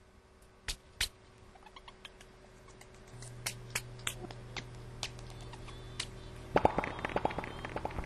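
Scattered sharp clicks and crackles over a low steady hum that comes in about three seconds in, with a burst of rapid, louder clicking near the end.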